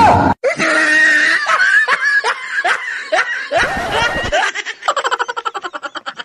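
Dubbed-in laughter sound effect: a run of short laughs that squeal upward in pitch, about two to three a second, then about five seconds in a faster, clipped run of laughs.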